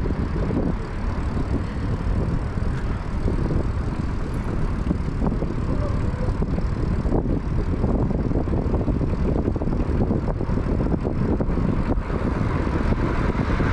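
Steady rumbling wind and road noise while riding an electric bike at speed, the wind buffeting the microphone.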